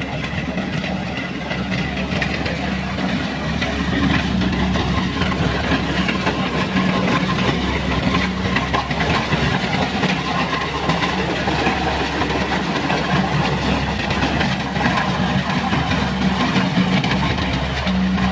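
Kubota combine harvester running while harvesting rice: a steady engine drone with a dense mechanical clatter over it, getting a little louder about four seconds in.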